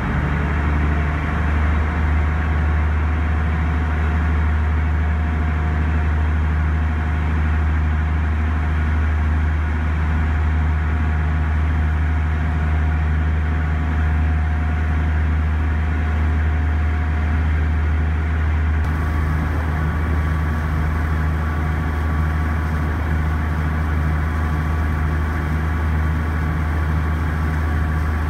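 Steady low drone of a small car ferry's diesel engine running underway, with the wash of the churning wake.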